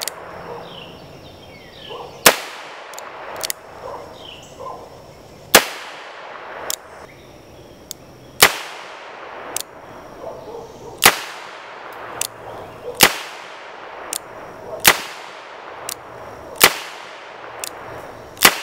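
Rock Island Armory M200 .38 Special revolver firing 158-grain full-metal-jacket rounds: seven sharp shots about two to three seconds apart, each with a brief ringing tail. The first shots are fired single action and the later ones double action, with fainter clicks between the shots.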